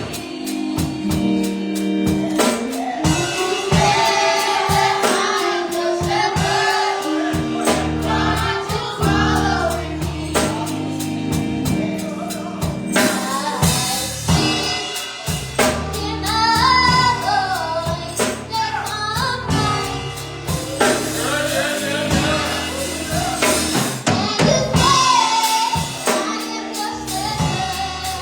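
Gospel choir singing with a live band: sustained keyboard and bass chords, a drum kit keeping a steady beat, and voices carrying the melody.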